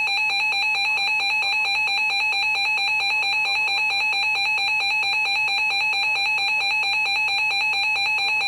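Weather alert radio's built-in alarm sounding: a loud, rapid electronic beeping, the alert that signals a newly received warning, here a flash flood warning.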